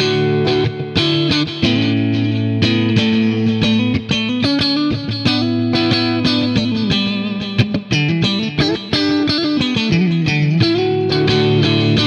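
Electric guitar played through Kins copies of DiMarzio Cruiser rail pickups on a Strat-style guitar, demonstrating the pickups' tone. Picked sustained notes and chords with several bends and slides.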